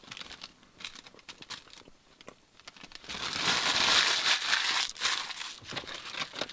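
Paper burger wrapper being crumpled up by hand: scattered crackles at first, then a dense run of crinkling from about three to five and a half seconds in.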